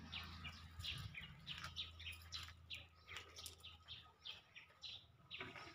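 Small birds chirping: a faint, busy run of short, quick chirps, each sliding downward in pitch, several a second.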